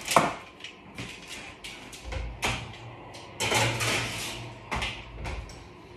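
A metal roasting tray clanking as it is lifted and slid onto the oven rack, with a longer scrape in the middle. The oven door opens and shuts around it with clunks and knocks.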